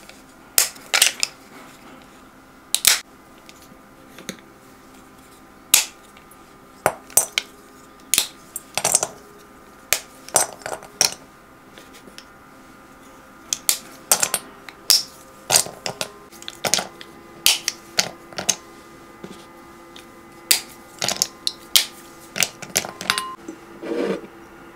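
A bar of dark chocolate snapped into pieces by hand, the pieces dropping and clinking into a glass mixing bowl: a long, irregular run of sharp snaps and clicks. Near the end there is one duller knock.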